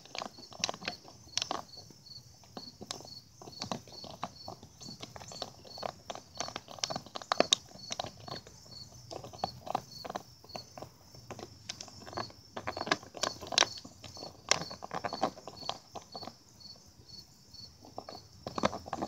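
A puppy chewing and pawing at a thin plastic water bottle: irregular crackles and crunches of the plastic, in clusters with short pauses between. Behind it a faint high chirp repeats steadily about twice a second.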